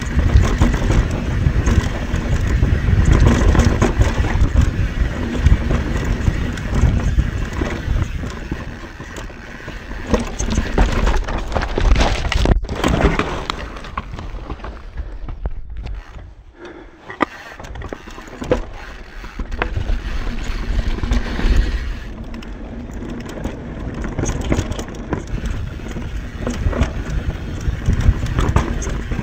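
Mountain bike ridden fast down a rough dirt trail, heard from a bike-mounted action camera: a steady rumble and rattle of tyres and bike over the ground, with wind on the microphone. It quietens for a few seconds about halfway through.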